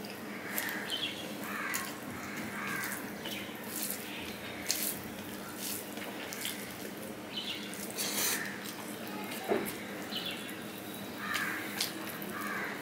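Close-miked mukbang eating sounds of rice and prawn malai curry eaten by hand: fingers squelching the rice and curry together on a steel plate, then wet chewing and lip smacks, in short irregular clicks.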